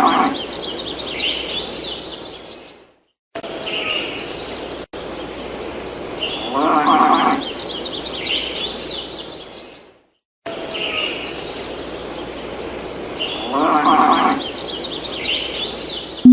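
A short animal sound effect played three times in a loop, about every seven seconds with brief silences between. Each time a low pitched animal call is heard with quick bird chirps above it, over a steady background hiss.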